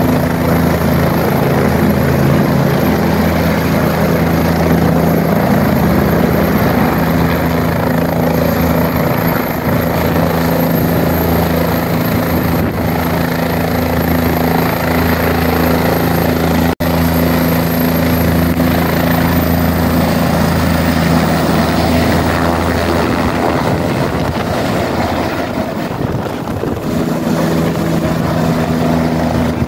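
Helicopter turbine engine and rotor running close by, a loud steady drone with a deep rotor beat. It breaks off for an instant partway through, and the sound shifts in the last few seconds as a helicopter lifts off the pad.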